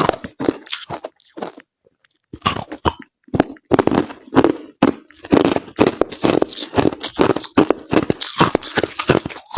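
Crushed ice being chewed close to the microphone: rapid, irregular crunches. A short pause comes about two seconds in, then steady chewing resumes for the rest.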